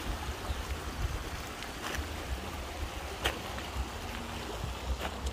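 Lakeshore ambience: a steady hiss of water with wind rumbling on the microphone, and a few faint light clicks.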